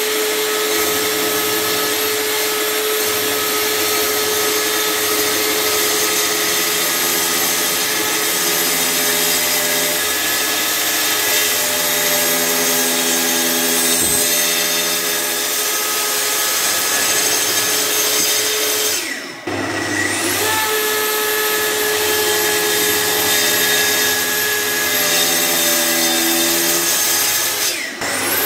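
Plunge-cut track saw running along its guide rail, its blade cutting a series of shallow grooves across the top of a glued-up wooden block: a steady motor whine. About two-thirds of the way through, the saw briefly drops off and spins back up with a rising whine, and it dips again briefly near the end.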